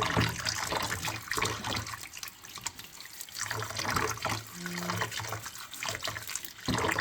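Water running from a tap and splashing unevenly, as a washing machine drain filter is rinsed under it.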